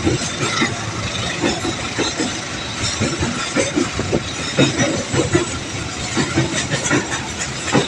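Container freight train rolling past, its wagons rattling with a dense run of irregular clicks and knocks from the wheels on the rails.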